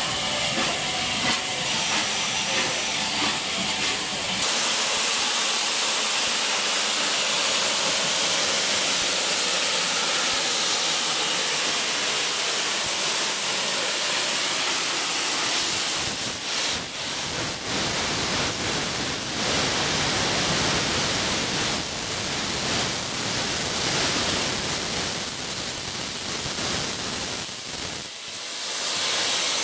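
Steam hissing loudly and steadily from Bulleid Battle of Britain class Pacific 34067 Tangmere as it moves off, steam escaping low around its cylinders. Uneven puffs break in about halfway through.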